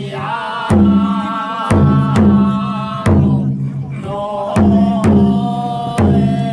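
Large taiko drum struck in a slow beat, about one stroke a second with some strokes doubled, each ringing on low. Held, chanted festival singing sounds between the strokes.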